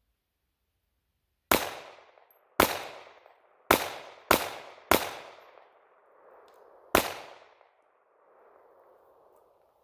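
Glock 42 .380 ACP pistol firing six shots of Fiocchi 75-grain ammunition, each with a short ringing tail: three about a second apart, two quicker ones, then a pause of about two seconds before the last.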